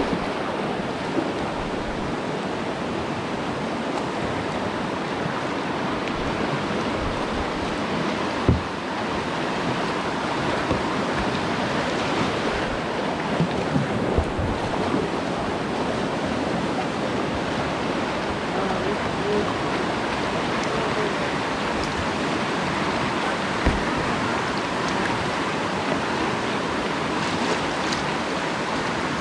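River whitewater rushing steadily over a riffle right around the kayak, with a few brief knocks.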